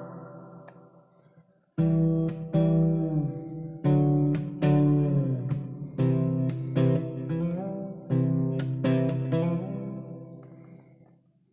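Fretless plucked string instrument played solo: single plucked notes and double-stops that ring and decay, several of them sliding smoothly up or down in pitch, as only a fretless neck allows. A note dies away at the start, playing picks up again about two seconds in, and the last note fades out near the end.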